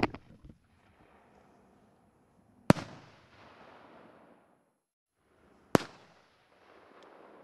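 2-inch aerial display shells bursting: two sharp bangs about three seconds apart, each followed by a long rolling echo. A cluster of loud bangs and pops dies away in the first half second.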